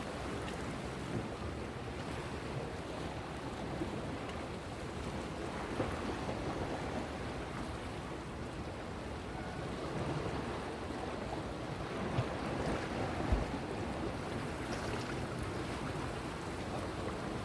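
Steady rush of moving water, like surf, with wind buffeting the microphone and a few low thumps along the way.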